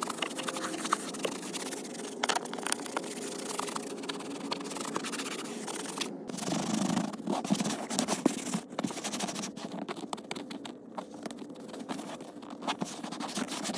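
Hand wiping a car's plastic door sill, floor mat and leather seat: continuous irregular rubbing and scraping with small clicks, over a steady low hum.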